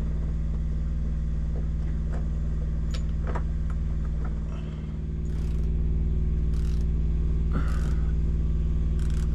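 Steady low mechanical hum, dipping slightly about halfway through and then steady again, with a few faint clicks and taps over it.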